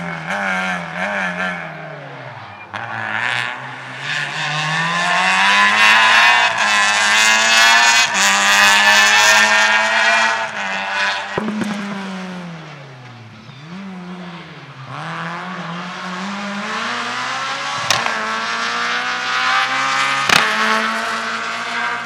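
Rally car engine at high revs, the pitch falling and climbing again several times as it slows and accelerates, loudest about a quarter to halfway through. Two sharp cracks near the end.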